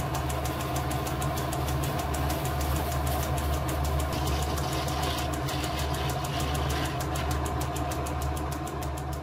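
Vintage Lorch metal lathe running under a facing cut in brass, its carbide tool throwing off chips. A steady motor and drive hum with a fast, even ticking.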